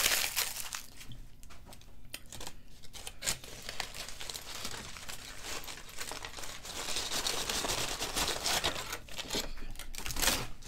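Aluminium foil food wrappers being peeled open and crumpled by hand: continuous crinkling with many sharp little crackles.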